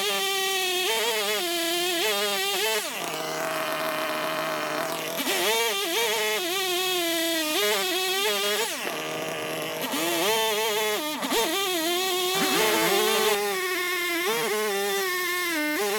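Two-stroke chainsaw running near full throttle, its pitch repeatedly dipping and rising as it loads and frees up while cutting a log. Between about 3 and 5 seconds in, it holds a steadier, lower note.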